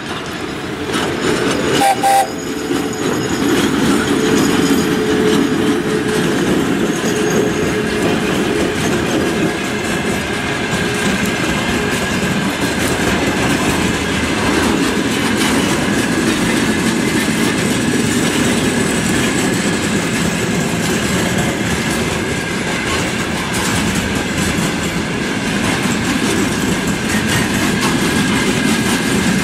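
Container freight train behind a VL10 electric locomotive rolling past, a steady rumble of wheels with clickety-clack over rail joints. About two seconds in there is a short horn toot from the locomotive, the loudest moment.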